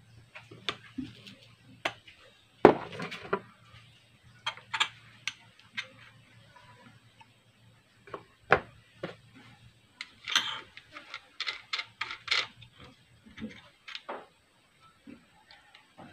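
Small metal tools clinking and tapping on the screw and lock nut of a fish shocker's contact-breaker points as they are fitted and tightened, in scattered knocks with a quick run of clicks about ten seconds in.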